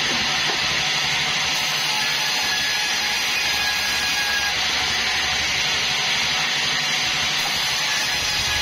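Band sawmill (a 'bandsaw 36') running steadily through a bayur log, a constant high hiss of the blade cutting with no break.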